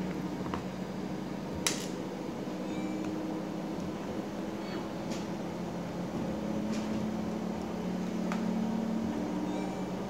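Steady low hum of a small motor, with a few faint sharp clicks.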